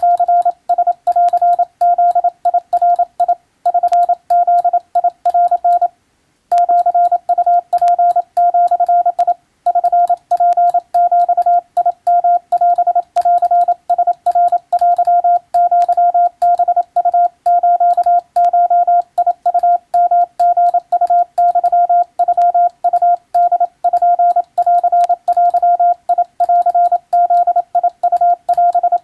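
Hand-keyed Morse code (CW): a single steady beep, rapidly switched on and off into dots and dashes, sending Japanese wabun telegram text. Short pauses fall between groups, the longest about six seconds in.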